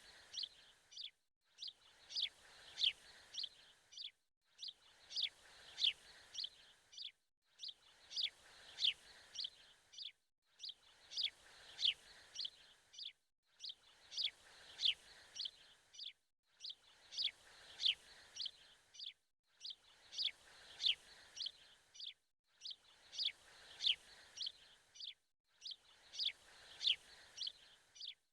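Birds chirping: a cluster of quick, high chirps that sweep downward, repeating the same pattern about every three seconds with a brief dead-silent gap between repeats, like a looped birdsong recording.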